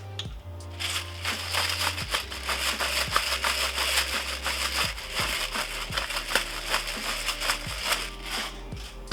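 Food sizzling and crackling in a hot pan, a dense hiss full of small pops that starts about a second in and dies down near the end, with background music underneath.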